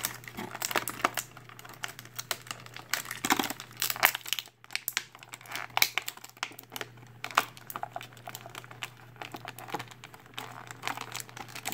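Clear plastic blister packaging crinkling and crackling in the hands as an action figure and its small pieces are worked loose from the tray. The crackles come irregularly, with a short lull about four and a half seconds in.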